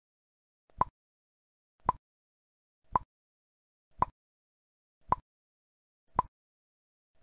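Sharp single clicks repeating evenly about once a second, with silence between them.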